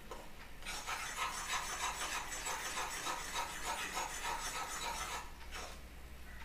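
Steel spoon stirring and scraping the bottom of a small wok of thickening jaggery syrup, kept moving so it does not catch on the bottom. Quick rhythmic scraping strokes, about three or four a second, start about a second in and stop about five seconds in.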